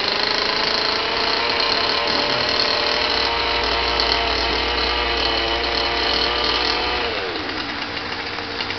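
An engine running at a steady high speed, then dropping in pitch about seven seconds in as it slows.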